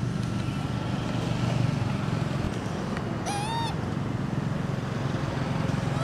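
A single short cry from a young long-tailed macaque about halfway through, rising and then falling in pitch, over a steady low rumble.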